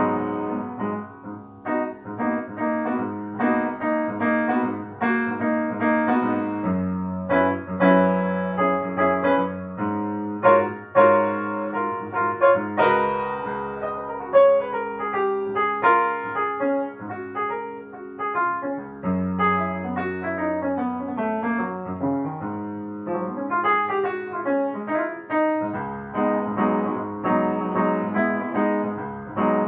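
Background piano music, a steady flow of melodic notes and chords.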